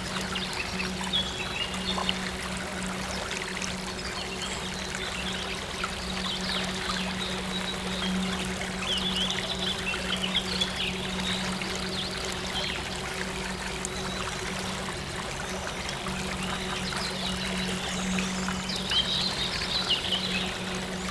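Running water trickling and pouring steadily, with small birds chirping on and off above it and a low steady hum underneath.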